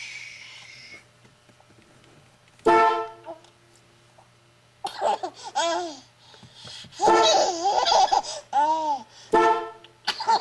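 Short honks of a horn, alternating with a baby's bursts of laughter.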